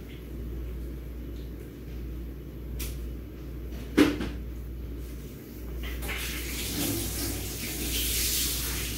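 A single sharp knock about four seconds in, with a fainter click shortly before it, over a steady low hum. A soft hissing rustle rises near the end.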